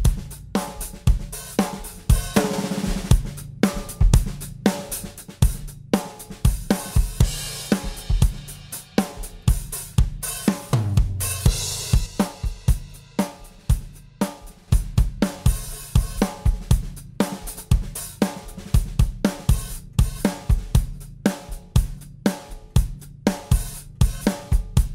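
Drum kit groove with kick, snare, hi-hat and cymbals, played back through an SSL G-style VCA bus compressor. Its compression is switched in and out about halfway through, so the kit is heard both compressed and uncompressed.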